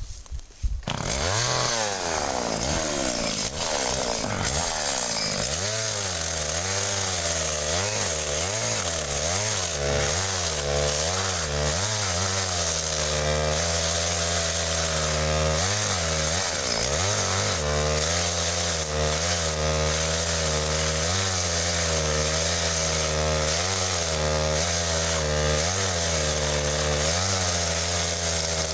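Chainsaw engine coming in suddenly near the start, revving up and down over and over, then running steadily at high speed with regular short dips in pitch, as when the saw is cutting into a tree trunk.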